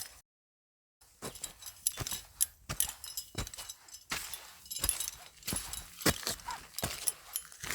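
Footsteps of a person walking at an uneven pace, each step a sharp strike. Dead silence for most of the first second, then the steps resume.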